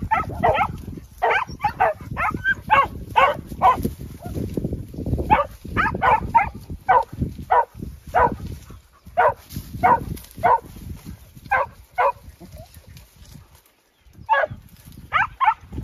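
Podenco orito español hunting dog barking in quick, repeated yelps while working through thick brush, the rustle of vegetation underneath, with a short pause near the end before the barking starts again. It is the barking a podenco gives on the scent of game in cover.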